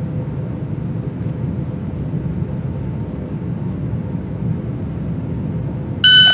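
A steady low background rumble, then near the end a short, high electronic beep from a shot timer: the start signal for a timed pistol draw.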